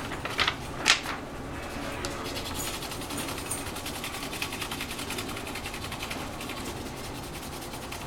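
Pencil lead rubbing quickly back and forth over paper laid across a power strip, shading over a mounting hole to make its outline appear. The strokes are fast and even, after two short scratches in the first second.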